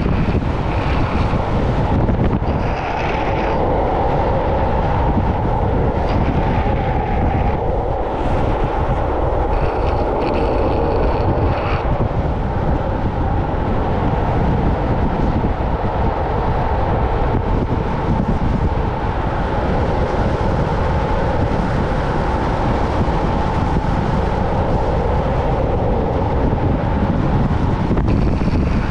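Steady rush of wind on a moving action camera's microphone, mixed with the roll of longboard wheels on asphalt at downhill speed.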